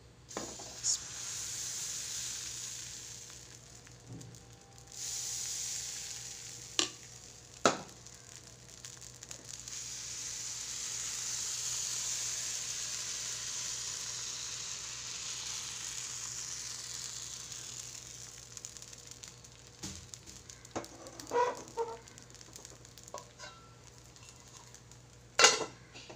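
Palappam batter sizzling in a hot appam pan (appachatti) on a gas flame. The sizzle swells through the middle and fades near the end. A few sharp knocks stand out, the loudest near the end.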